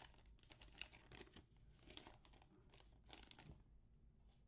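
Faint crinkling and tearing of a trading-card pack wrapper being opened and handled, in irregular rustles that die away in the last second.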